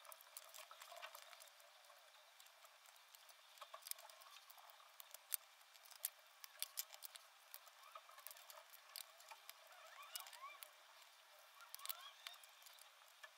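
Faint, irregular light clicks and taps of small wooden popsicle sticks and a utility knife being picked up, laid down and handled on a tabletop.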